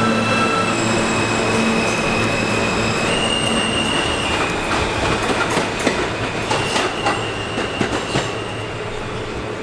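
New York City Subway train pulling out and moving away, its propulsion whining in steady tones that shift pitch in steps as it speeds up. From about five seconds in, the wheels click sharply over rail joints. The sound fades as the train goes.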